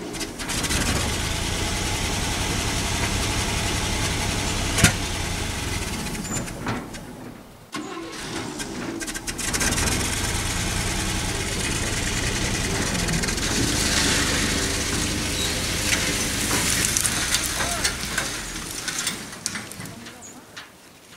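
1964 GMC pickup's 305 V6 engine running after being started, with one sharp pop about five seconds in. It cuts out briefly about seven and a half seconds in, picks up again, and dies away near the end.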